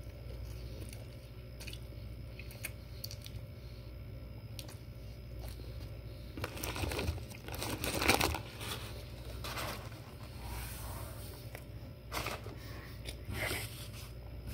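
Faint chewing of a bite of sandwich, then a paper sandwich wrapper rustled and crumpled by hand from about six and a half seconds in, loudest around eight seconds, with a few more short crinkles near the end.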